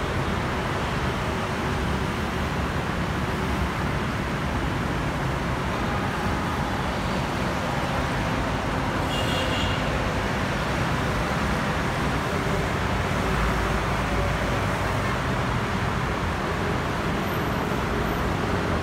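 Steady road traffic noise from a busy multi-lane avenue, with motor scooters and cars passing continuously. A brief high tone sounds about halfway through.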